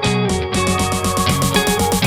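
Background music: fast, rhythmic plucked guitar-like notes.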